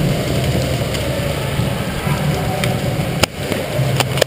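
Steady rumbling noise from a body-mounted action camera carried by a moving player, with three sharp clicks near the end, two of them close together.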